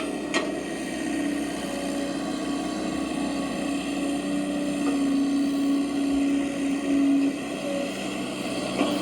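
Small electric motors of radio-controlled construction models whining steadily, with a click just after the start. The whine wavers slightly in pitch and fades near the end.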